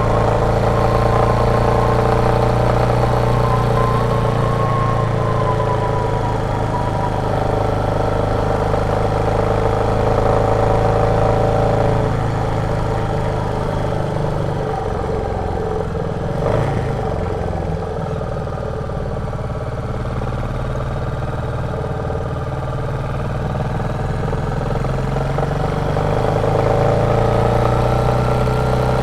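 Royal Enfield Meteor 350's single-cylinder 349 cc engine thumping along under way, heard from the rider's position. It holds a steady speed, eases off to lower revs about halfway through, then picks up again near the end.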